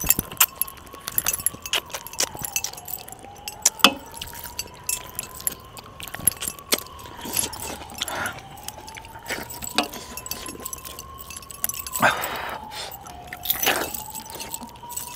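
Light metallic clinks and jangling as a hand scoops food from a steel plate, with metal bracelets and rings knocking against the plate; the clicks come irregularly, several a second, with a couple of louder rustles near the end. Behind them a faint thin tone slowly rises and then dips, about every five seconds.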